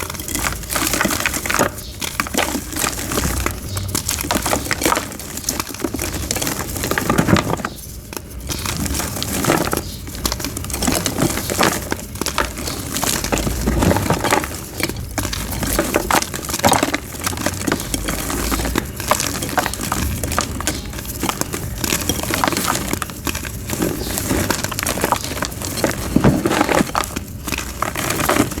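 Soft blocks of white gym chalk being crushed and crumbled into powder, a continuous dense crackling of many small crunches with brief pauses.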